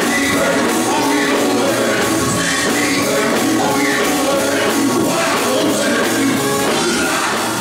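Live gospel music: a male lead singer singing through the church sound system over the band, with a tambourine shaken along and the congregation clapping to the beat.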